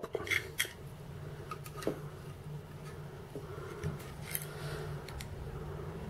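Faint scattered clicks and light rubbing as the small plastic buttons and metal case of a VooPoo Drag box mod are handled and fitted back together, over a low steady hum.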